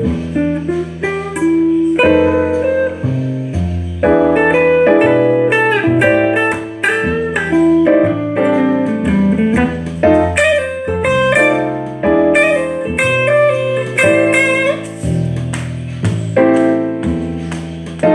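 Electric guitar playing a blues solo in A minor, a quick run of single notes with bends, over a backing track with bass and keyboard chords.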